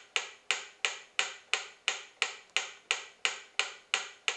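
Mechanical pyramid metronome in a wooden case ticking steadily, about three sharp ticks a second.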